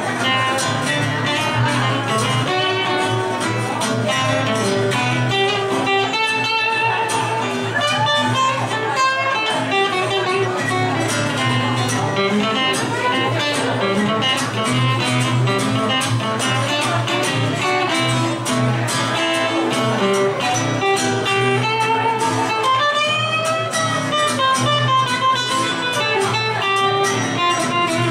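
Acoustic blues instrumental: two acoustic guitars picked and strummed, with a harmonica in a neck rack playing a lead line of gliding notes over them.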